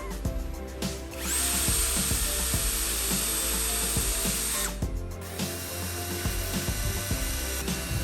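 A power tool's motor spins up about a second in, runs with a steady high whine for about three and a half seconds, then stops, amid frequent light knocks and clicks.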